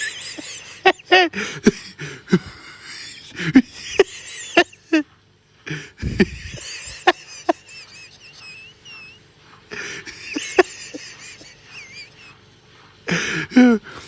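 A person's wheezing laughter: short, squeaky, high-pitched gasps in fits, with pauses between them, some drawn out into a thin whistle.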